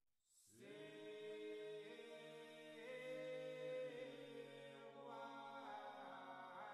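Soft background choral chant: several sustained voices over a steady low drone, starting about half a second in.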